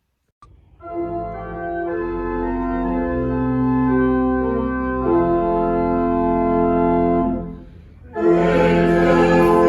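Church organ playing slow, sustained chords, the introduction to a hymn. After a brief break near the end, the music comes back fuller as singing voices join.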